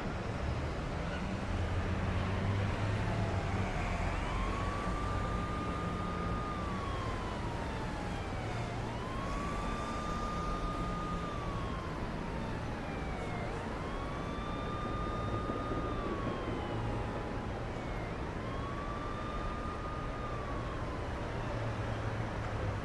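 Siren wailing in slow cycles, each one climbing quickly, holding, then sliding back down, repeating four times from about four seconds in, over steady vehicle noise.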